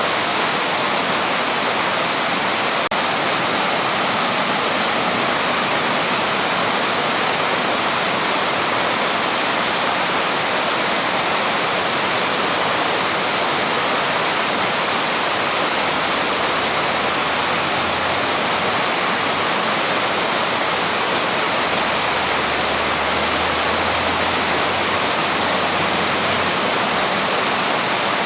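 Small waterfall rushing steadily, a dense unbroken hiss of falling water. A faint low hum joins for several seconds past the middle.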